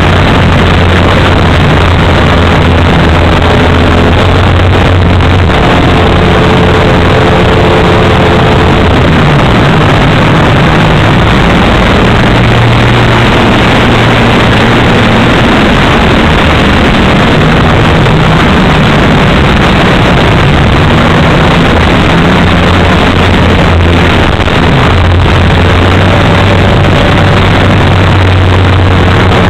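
Onboard sound of a radio-controlled aerobatic plane's 3W gasoline engine and propeller running in flight, loud and steady, with wind rushing over the microphone. The engine note rises and falls a few times.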